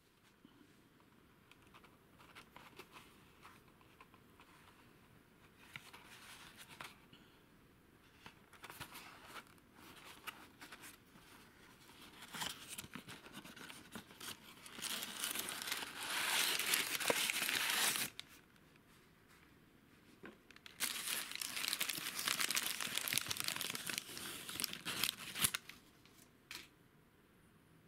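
Hands handling a small cardboard box and its paper packing: cardboard scraping and rustling as the flaps are opened, then two long, louder spells of paper crinkling as the valve is unwrapped and pulled out.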